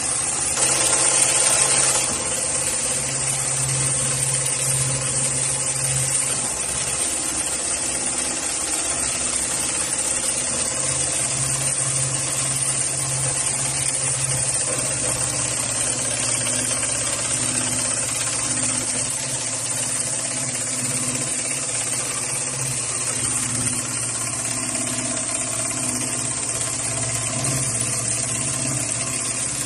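Industrial automatic sewing machine running steadily as it stitches heavy red polyester lifting-sling webbing, a continuous mechanical hum. About a second in there is a brief, louder hiss.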